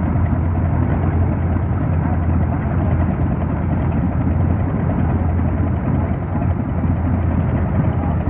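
Farmall tractor engine running steadily at low idle as the tractor creeps along slowly.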